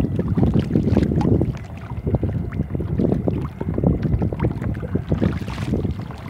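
Wind buffeting the microphone, with small waves slapping and splashing against the hull of a plastic kayak in irregular bursts.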